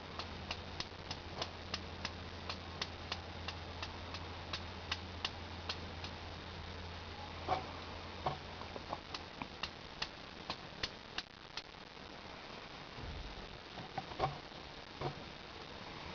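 Budgerigar sneezing over and over: a run of small, sharp, clicky sneezes about two a second, unevenly spaced, with a few louder ones. Such repeated sneezing is linked to illness.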